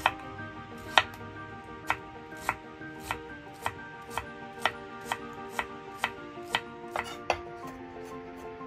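Chef's knife chopping red onion on a wooden cutting board: sharp knocks of the blade on the board, about two a second, stopping about seven seconds in. Soft background music plays underneath.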